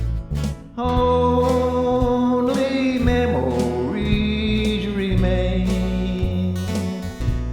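Country ballad played on guitar with bass notes underneath and a long-held melody line on top.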